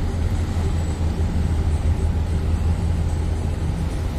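A tugboat's diesel engines running as the tug comes in to moor, heard as a steady low rumble.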